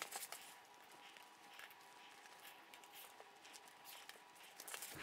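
Near silence, with faint rustling and a few light scattered taps of fabric pieces being handled and pinned on a cutting mat.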